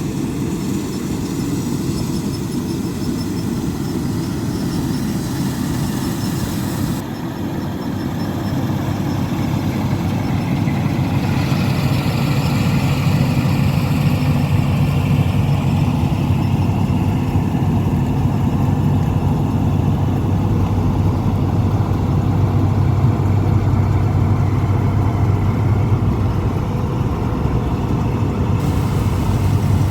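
Combine harvester's diesel engine running steadily with a deep hum, growing louder about ten seconds in.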